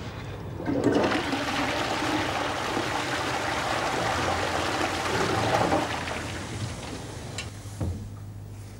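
Toilet being flushed: a click of the push button, then water rushing into the bowl for about five seconds before it tails off. A short knock follows near the end.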